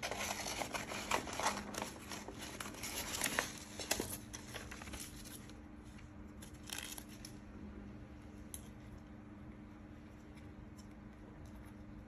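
Sheets of paper rustling and crinkling as they are handled, then small scissors snipping through paper in short cuts. The sound drops to a few faint snips about halfway through.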